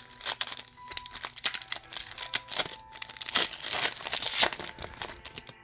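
A Pokémon TCG booster pack's foil wrapper being crinkled and torn open by hand: a dense run of crackling that is loudest near the end, then stops suddenly.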